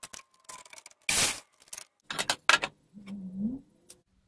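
Wood and tools handled at a workbench while a cut piece is tried for fit: a string of short knocks and clacks, with a louder scrape about a second in.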